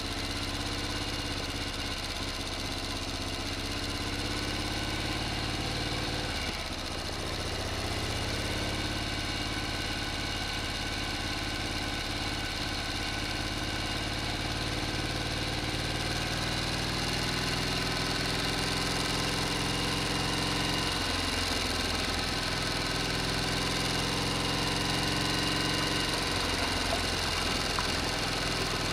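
Small DC hobby motor running steadily, driving a miniature model water pump through a thin rubber belt: a continuous whirring hum that dips briefly about six seconds in.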